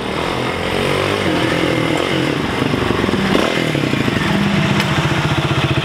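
Motorcycle engine running close by, its pitch wavering a little.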